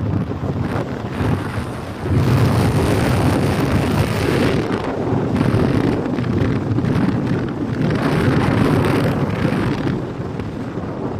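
Wind buffeting the microphone of a phone held out of a moving car, a steady rushing noise over the low rumble of the drive. It swells about two seconds in, gusts again later on, and eases near the end.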